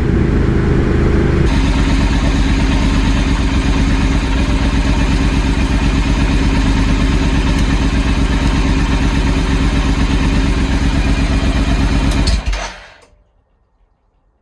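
Triumph Speed Twin's parallel-twin engine running under way, with wind noise. The sound changes about a second and a half in, holds steady, then fades out to near silence a couple of seconds before the end.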